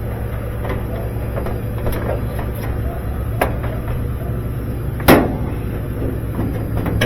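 Scattered clicks and knocks from handling and fitting metal dryer parts during a repair, one sharp knock louder than the rest about five seconds in, over a steady low hum.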